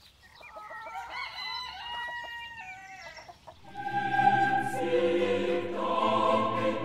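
A rooster crows, one long call gliding up and down in pitch. About halfway through, choir music comes in and carries on.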